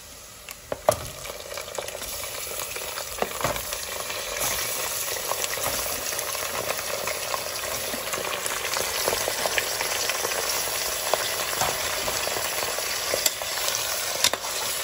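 Raw chicken pieces going into hot oil and fried onions in an aluminium pressure cooker: after a sharp knock about a second in, the sizzle builds over the next few seconds and then runs on steadily, with a metal ladle scraping and clicking against the pot as the meat is stirred.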